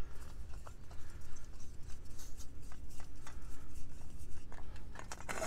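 Small faint scrapes and clicks of a Trangia gas burner's hose fitting being threaded onto a screw-on LP gas canister, over a low steady background rumble.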